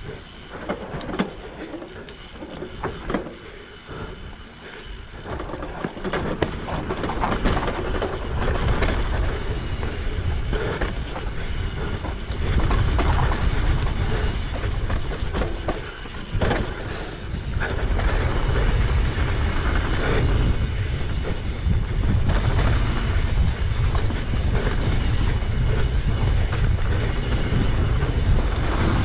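Mountain bike descending a dirt trail at speed: a low rumble of tyres on dirt and wind on the microphone, with many rattles and knocks from the bike over bumps. The noise grows louder as speed builds, with the heaviest rumble from about halfway through.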